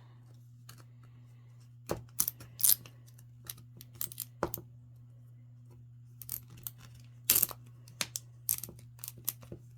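Irregular sharp plastic clicks and short crinkles as a small Miniverse plastic capsule ball is handled and opened by hand, over a steady low hum.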